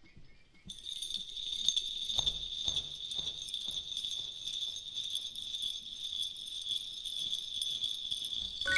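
Small bells jingling continuously, starting about a second in.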